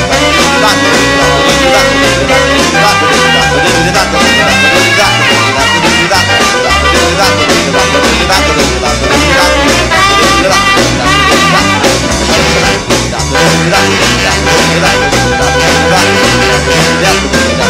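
Live rhythm-and-blues band of drums, bass, piano, guitar and saxophones playing an instrumental stretch of a boogie, with no singing and a steady driving beat.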